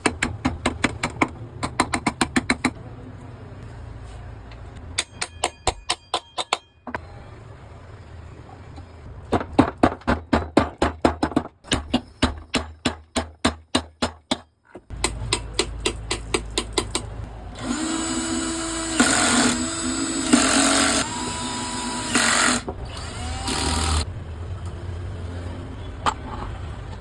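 Several runs of rapid, sharp metallic taps from tool work on a ceiling fan's bearing, each lasting a couple of seconds. About fifteen seconds in, a steady low hum starts, and loud bursts with steady tones sound over it for several seconds.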